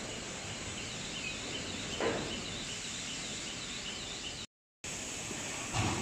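Steady mechanical hiss of a plywood hot press line, with a quick run of faint high chirps through the middle and a short louder rush about two seconds in and again near the end. The sound cuts out for a moment about three-quarters of the way through.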